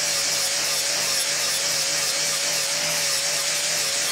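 Angle grinder with a flap disc grinding the edge of a steel lawnmower blade held in a vise, resharpening it. The motor holds a steady whine under a loud grinding hiss.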